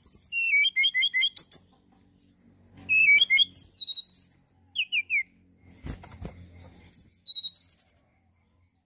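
A tledekan gunung singing: bursts of rapid, high chirping notes, some rising and some falling, in four phrases with short pauses between them. A couple of dull knocks sound about six seconds in.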